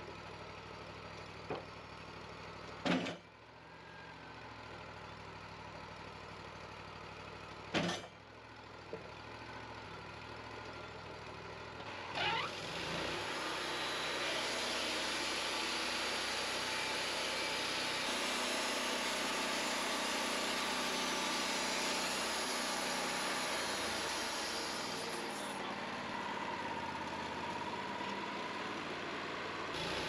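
Wood-Mizer LT40 portable band sawmill's Kohler engine running steadily, with two sharp knocks in the first ten seconds. From about twelve seconds in, a louder, steady rushing noise joins it as the band blade cuts a board off a Douglas fir log.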